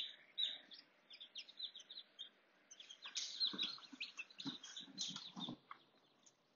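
Newly hatched chicken chicks peeping: short, high chirps at irregular intervals, with a few soft low knocks in the middle.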